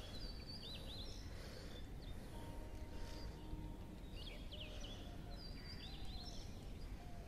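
Faint outdoor ambience: steady low background noise, with a bird calling in short bursts of quick, high chirping notes every second or two.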